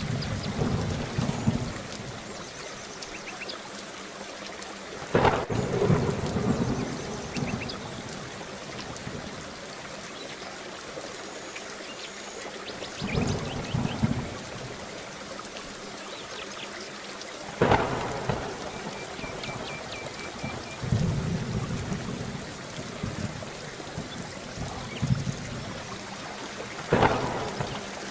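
Steady heavy rain with thunder: about five thunderclaps a few seconds apart, some opening with a sharp crack and each trailing off into low rumbling.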